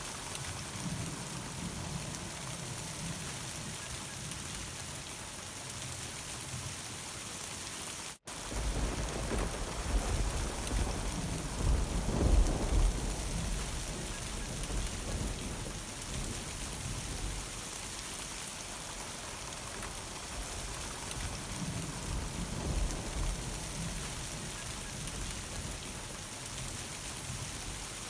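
Steady summer rain with thunder. A faint low rumble comes early, then the sound cuts out for a split second about a third of the way in. A long rolling thunder rumble follows, loudest in the middle, and a weaker rumble comes later.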